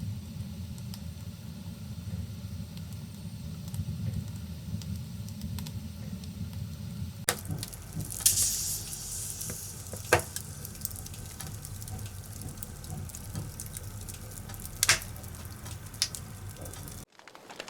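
Open wood fire burning: a steady low rumble of flames with light crackling, then a brighter hiss and a few sharp pops of burning wood.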